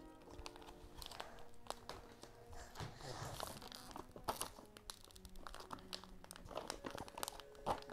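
Slime kit packaging being handled and opened: faint crinkling and rustling with scattered small clicks.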